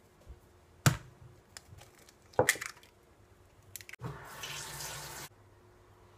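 Two sharp cracks about a second and a half apart as eggs are cracked against a glass jar, then a kitchen tap runs into the sink for just over a second and is shut off suddenly.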